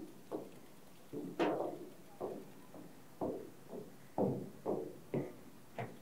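Hollow knocking footsteps on a floating pontoon deck as a bicycle is walked across it: a string of uneven thuds, about one or two a second, each with a short ring.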